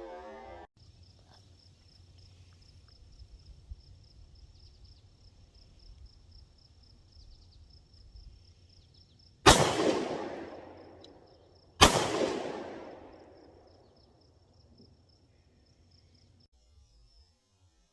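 Two gunshots from a prototype pistol, a little over two seconds apart, each followed by a long echo that dies away.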